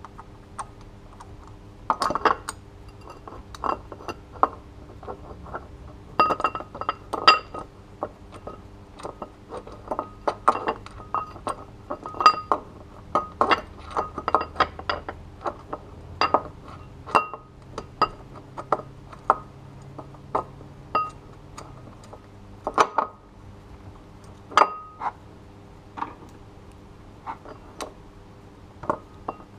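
Irregular metallic clinks and taps, in scattered clusters: a metal hand tool knocking against engine pulleys and brackets, each hit with a short ring.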